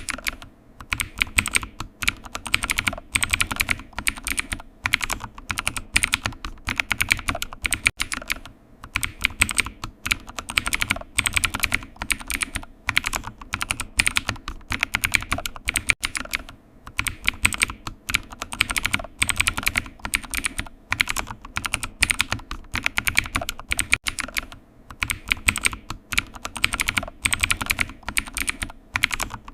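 Computer keyboard typing: fast runs of key clicks with short pauses between bursts.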